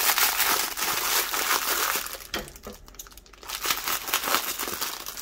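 Thin clear plastic bags crinkling as they are handled, with a dense run of small crackles that eases off for about a second midway and then starts again.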